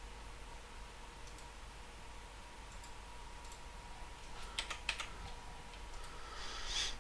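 Computer mouse and keyboard clicks while working in CAD software: a few sparse clicks, then a quick cluster about four and a half seconds in. A brief hissing rush comes near the end.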